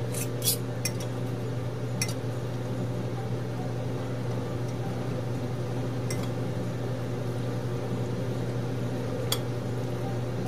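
Metal utensils clinking a few times against a ceramic bowl as cooked potatoes and vegetables are mixed and mashed, over a steady low hum.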